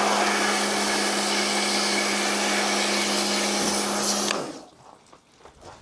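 A motor-driven cleaning tool run in one steady blast on a tumble dryer's condenser box: a loud, even rush over a steady motor hum, cut off about four and a half seconds in.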